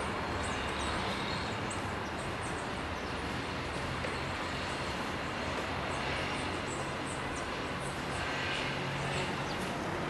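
Many small birds chirping, short high faint calls over and over, above a steady low background rumble and hiss.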